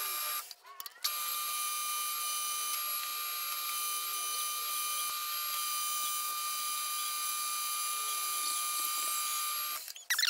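Metal lathe running while its cutting tool turns a relief profile freehand on the back of a V-belt water pump pulley: a steady machine whine with a high cutting hiss. The sound drops out briefly just after the start and stops near the end.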